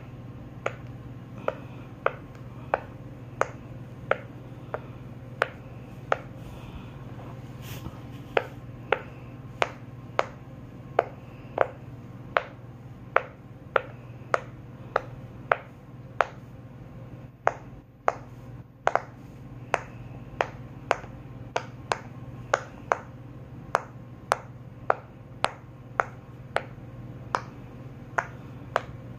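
Rainbow silicone pop-it fidget toy being popped by hand, its bubbles pressed one after another in a steady run of sharp pops, roughly one or two a second, over a low steady hum.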